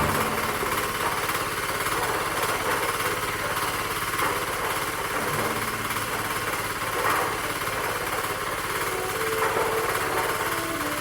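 Two-bagger concrete mixer running steadily, with an even mechanical rattle.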